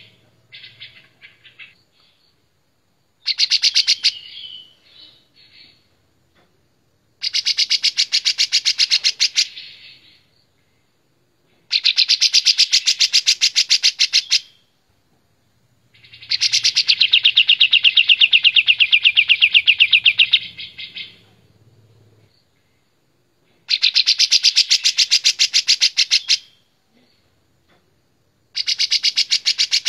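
Kapas tembak, a caged bulbul, singing loud, clear song phrases of rapid repeated notes, six phrases of about three seconds each with short pauses between; the phrase about midway runs longest, about five seconds.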